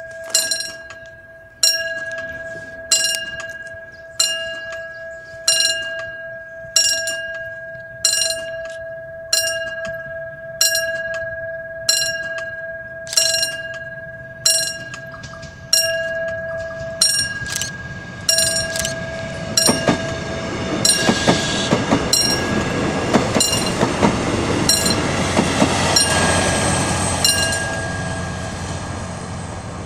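Level-crossing warning bell striking about once every 1.3 s over a steady warning tone. From about twenty seconds in, the Korail DMZ-train multiple unit runs past, its rumble and rapid wheel clacks building to a peak near the end and then easing off.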